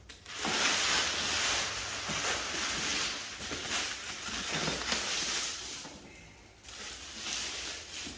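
Rustling and scraping as the heavy bag and its packaging are handled: a long stretch of noise that dips about six seconds in and picks up again near the end.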